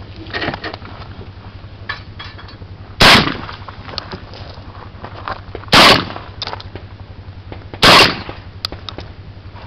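Three loud shots from a Saiga 12 semi-automatic shotgun fired close by: about three seconds in, again near six seconds and once more near eight seconds, each with a short ring-out.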